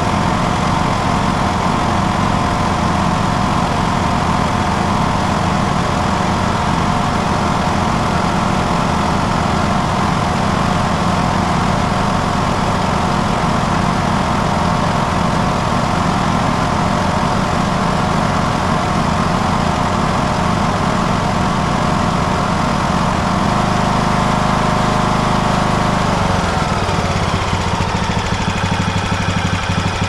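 Briggs & Stratton Intek single-cylinder engine on a Craftsman riding mower running steadily at full throttle during a charging-system test. Its revs drop near the end.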